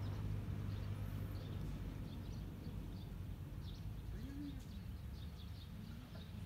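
Small birds chirping repeatedly over a steady low rumble of outdoor background noise.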